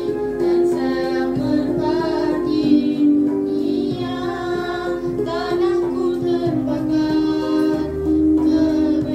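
A child singing into a handheld microphone, with music behind the voice; the singing goes on without a break, held notes and gliding phrases.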